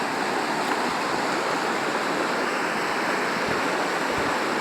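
Mountain stream in flood after heavy rain, its swollen water rushing as a steady, even noise.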